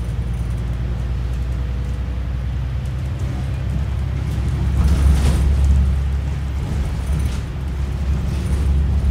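Bus engine and road noise heard from inside the passenger saloon while riding: a steady low rumble that grows louder about five seconds in, with a brief rush of noise at its peak.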